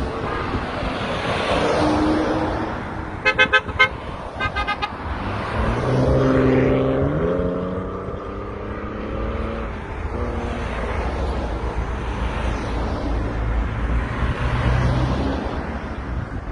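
Car horn tooting in two quick runs of short beeps a few seconds in, over steady wind rumble on the microphone. A vehicle engine then rises in pitch as it speeds up.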